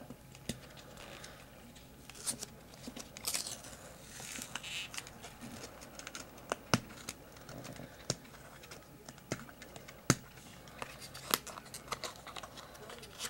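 A cardboard Topps Treasury rip card being torn open by hand along its perforated strip: faint tearing and rustling with scattered small sharp clicks.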